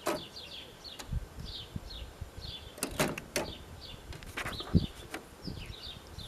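1963 Royal Empress manual typewriter keys striking in sharp, irregular clacks, several in quick succession around the middle, with some duller thuds. A bird chirps over it throughout in short, falling notes.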